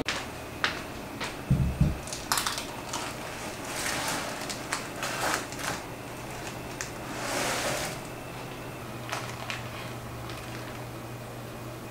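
Baking paper crinkling and rustling as sheets of sponge cake are handled and cut, a run of short crisp crackles with one longer rustle about two-thirds of the way through.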